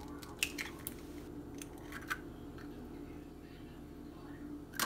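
Eggs being cracked on the rim of a glass mixing bowl: a few light taps and crackles of shell in the first two seconds, and a louder sharp knock near the end, over a steady low hum.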